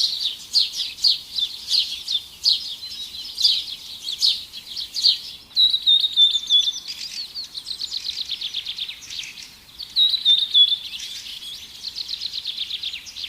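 Caged songbirds at a bird market chirping and singing. First come sharp repeated chirps, about two a second. From about five seconds in there are warbled phrases and fast rattling trills.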